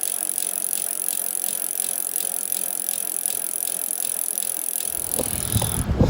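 Bottom bracket of a 2015 Specialized Roubaix creaking while ridden: short, sharp creaks about three times a second over a steady high hiss, with a low rumble of wind or road noise coming in near the end.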